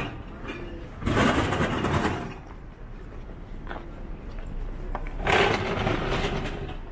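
Busy town street ambience, with two louder swells of passing noise, about a second in and again about five seconds in.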